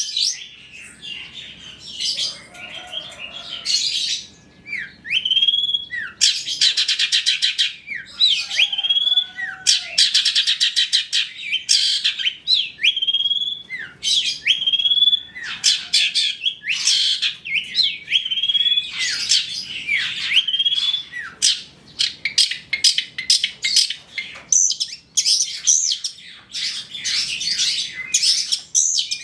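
Long-tailed shrike singing: fast scratchy chattering runs broken by short slurred whistles that sweep up and then bend, repeated about once a second.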